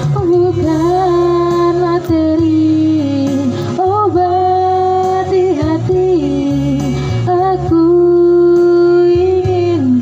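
A woman sings a slow melody into a handheld microphone, holding long notes over steady instrumental accompaniment. The longest note, about two seconds, comes near the end.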